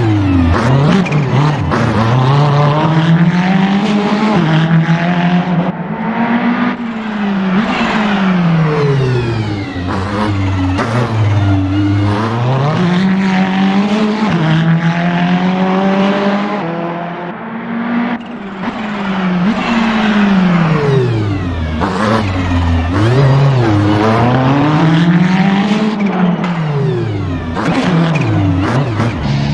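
Ferrari 488 GT3's twin-turbo V8 racing car engine under hard driving: it revs up again and again, each climb in pitch broken by sharp drops as it lifts and shifts, then falls away into the next bend before accelerating again. It runs loud throughout, easing briefly a little past the middle.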